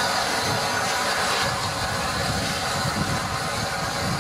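Rebuilt Bulleid West Country class steam locomotive 34046 Braunton standing with steam hissing from it, a loud, steady hiss.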